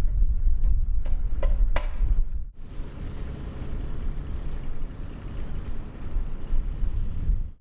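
Car ferry's deep, steady engine rumble. A few sharp knocks come in the first couple of seconds, then it cuts to a smoother rumble with hiss.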